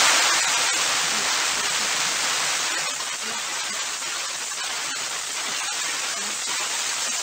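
Steady hiss like static or white noise. It starts suddenly and eases off a little over the first few seconds, then holds steady.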